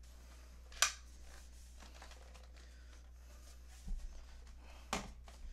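Two sharp clicks from handling a carbon-fibre tripod's legs and head, one about a second in and one near the end, with a soft knock shortly before the second.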